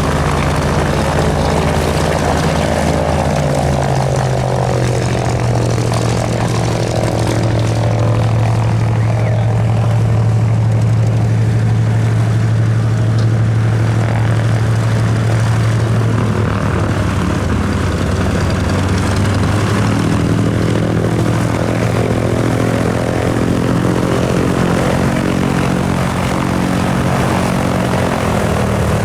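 Autogyro's piston engine and pusher propeller droning as it flies past, the pitch dropping a few seconds in as it goes by, then climbing again near the end as it comes back around.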